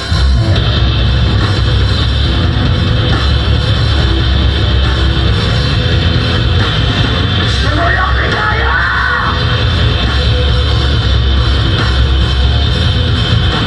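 Live metalcore band playing loud, with distorted electric guitars and a heavy drum kit.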